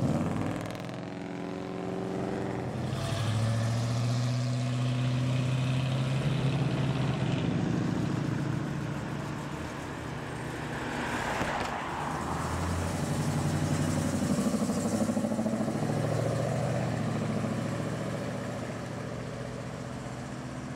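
Engines of classic American cars pulling away one after another, among them a 1966 Pontiac GTO's V8, swelling and fading as each car passes, with the engine pitch shifting as they accelerate.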